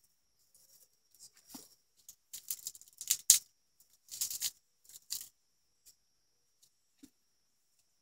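A run of short scrapes and clicks, thickest in the middle and loudest about three seconds in, over a faint steady high-pitched whine.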